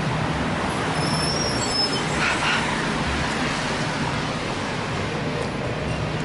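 City street traffic noise: a steady wash of passing vehicles with a low engine hum under it, and a brief high squeal about a second and a half in.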